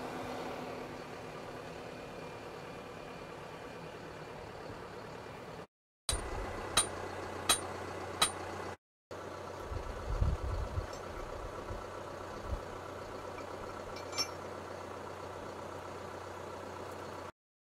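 Tractor engine idling steadily. Over it come four sharp clicks evenly spaced under a second apart, and a little later a few dull low thumps and one more click; the hum drops out briefly twice.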